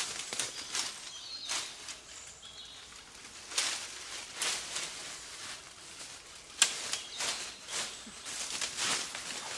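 Leafy branches rustling and twigs crackling against a stick tipi frame as they are handled and laid on, in irregular bursts with one sharp snap about two-thirds of the way in.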